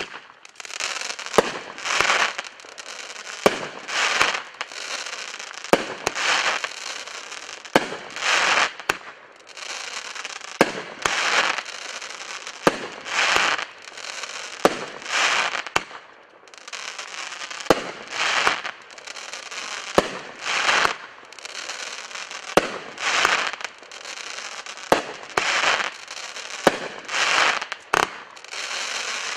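Fluorescent Night 16-shot consumer firework cake (Elegant Chrysanthemum) firing its shots one after another, about one every two seconds. Each shot is a sharp report with about a second of crackle around it.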